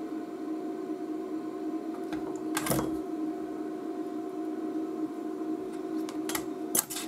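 Steady electrical hum from bench equipment, with a few sharp clicks of small tools striking the bench or board: one about a third of the way in and two or three close together near the end.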